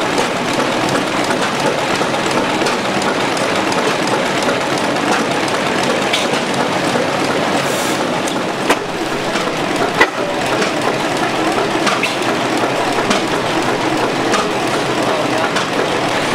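Antique International Harvester stationary gas engine running, a steady mechanical clatter with a few sharp clicks scattered through.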